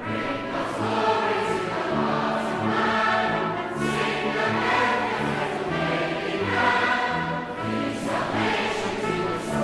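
A choir singing, with long held notes over steady low accompanying notes.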